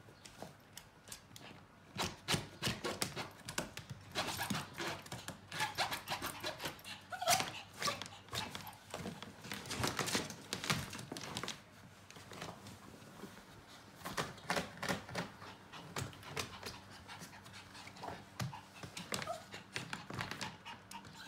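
Yorkshire terrier panting rapidly in quick runs of breaths, with a short lull about halfway through; excited panting, roused by a female in heat.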